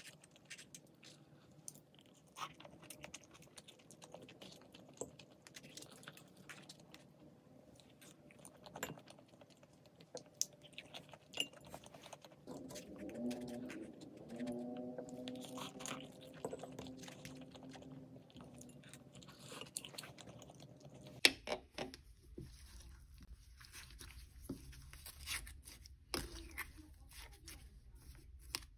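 Close-miked eating sounds: chewing and crunching with small clicks, with a steady low hum coming in about two-thirds through.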